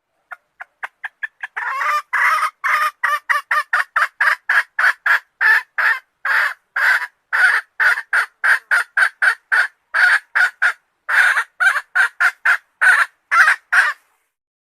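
Red junglefowl hen calling to a rooster: a long run of short clucking notes, soft and quick at first, then louder at about three to four a second, stopping shortly before the end.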